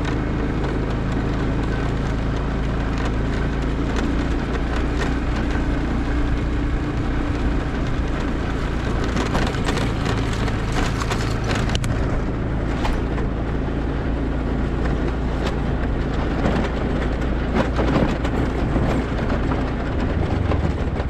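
Motorbike engine running steadily, its low hum even throughout, with a few light knocks and clicks over it.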